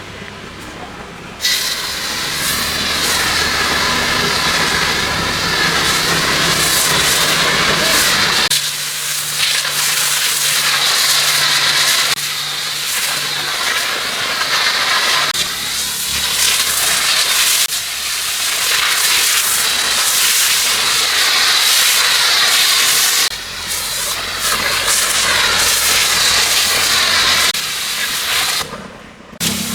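A pressurised cleaning jet hissing loudly, cut by short pauses every few seconds as the trigger is let go, over a low steady machine hum.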